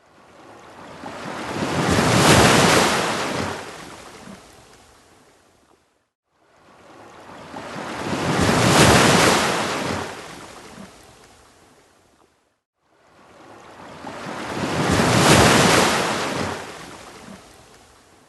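Ocean waves washing onto a beach, three in turn. Each swells up, peaks and fades over about six seconds, and drops briefly to silence before the next.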